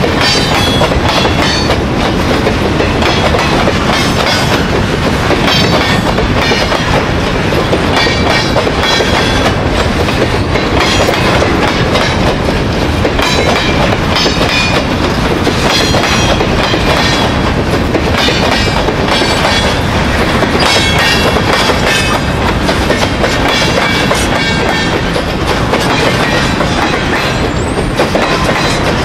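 Freight train's hopper and box cars rolling past: a steady, loud rumble of steel wheels on rail, with a rapid run of clicks over the rail joints and short high squeals from the wheels every second or two.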